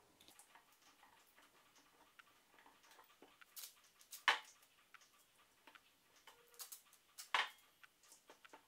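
Quiet handling of cloth duct tape on ceramic bowls: light ticks and crackles as tape strips are pulled from the roll and pressed into a bowl, with two louder sharp sounds about four seconds in and near the end.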